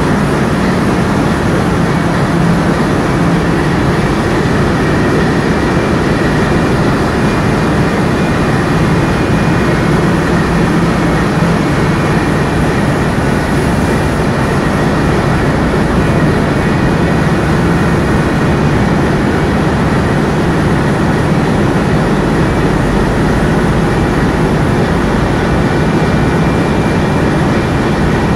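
Steady, loud engine drone of a tug boat heard on its deck, mixed with the rush of water and wind along the tanker's hull, unchanging throughout.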